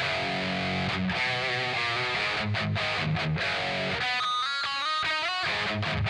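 Electric guitar played through a Kemper Profiler on a Splawn Quickrod high-gain amp profile, heavily distorted: low chugging riffs, then about four seconds in a short run of single lead notes before the heavy riffing comes back near the end.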